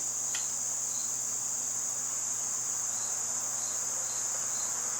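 Crickets trilling in a steady, unbroken high-pitched drone, with a faint low hum underneath.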